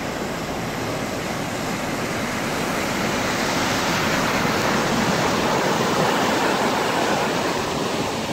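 Floodwater rushing in a swollen river: a loud, steady rush of water that swells a little midway.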